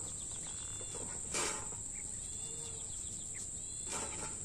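Steady high-pitched insect drone, with two brief knocks about a second and a half in and near the end, and a few short high chirps.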